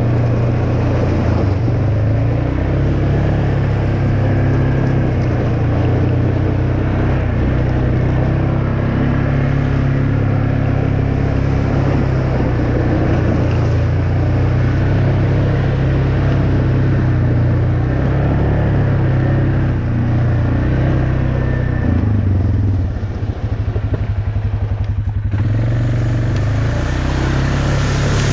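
Off-road vehicle's engine running steadily as it drives the trail. A few seconds before the end it eases down to a slow, even throb, then picks up again.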